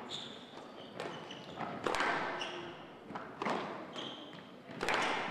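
Squash rally: the ball cracking off rackets and the walls in sharp knocks about a second apart, with short high squeaks of court shoes on the wooden floor. Applause starts near the end.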